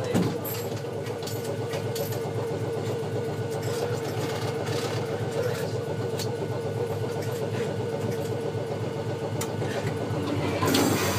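Steady hum of a Kumamoto City Tram 8800-series car standing still, heard inside the car: a constant low drone with a steady mid-pitched tone and a few faint clicks.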